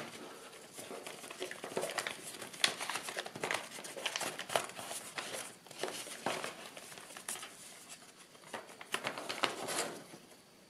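Folded kraft paper rustling and crinkling as an accordion-fold leporello is pulled open by hand, with irregular crisp clicks as the creases flex. It dies down near the end.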